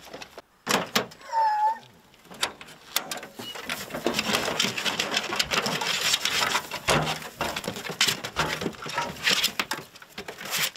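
Hunting hounds moving about inside a metal dog box: claws clicking and scraping on the floor and straw bedding rustling, with many sharp knocks. A short high whine about a second and a half in.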